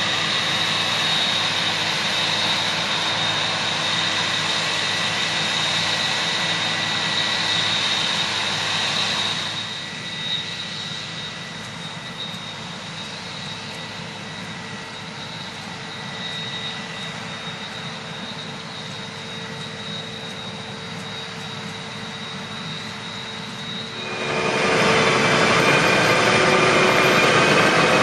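Combine harvester working in a rice field: a steady engine and threshing drone with a high whine. It drops to a quieter drone about a third of the way in, then comes back louder with a different whine near the end.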